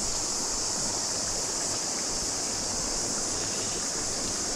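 Steady rush of a flowing river, with a continuous high-pitched chorus of cicadas over it.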